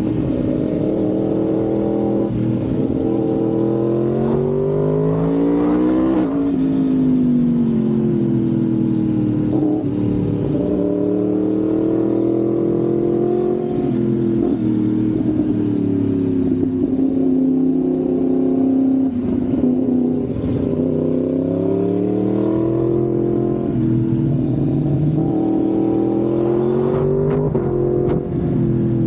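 Yamaha MT-10's crossplane inline-four engine running through an SC-Project aftermarket exhaust, its pitch climbing to a peak about six seconds in, dropping sharply, then climbing again near the end before falling off.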